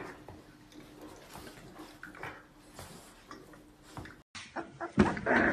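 Puppies wrestling on a shaggy rug: faint rustling and scuffling with scattered light knocks, over a faint steady hum. Near the end the sound cuts out briefly and a sudden, much louder burst of noise follows.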